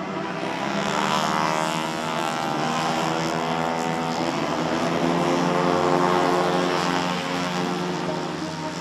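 Four-stroke racing scooter engines running at high revs as several scooters race past, the sound swelling twice and loudest about six seconds in.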